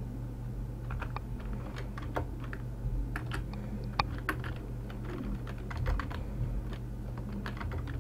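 Typing on a computer keyboard: irregular key clicks at an uneven pace, with a few sharper strokes.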